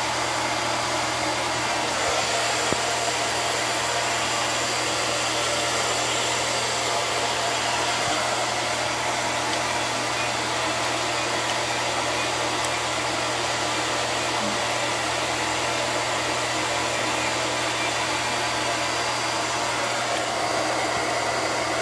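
Steady whir of rushing air from a motor-driven fan or blower, with a constant low hum underneath, unchanging throughout.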